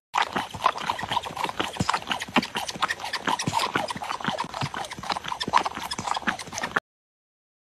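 Cat sucking on a baby-bottle nipple: quick, irregular clicks, several a second, stopping abruptly near the end.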